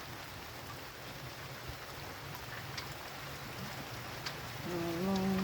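Steady rushing noise with a low rumble underneath. Near the end, a steady droning tone starts and steps up in pitch, louder than the rushing.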